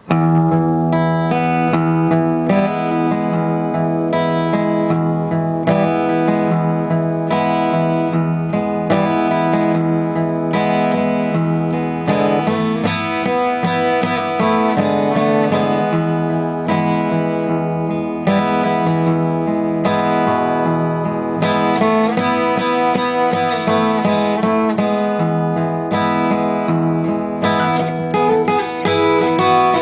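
Acoustic guitar playing chords, with notes struck at a steady pace and the chords changing throughout.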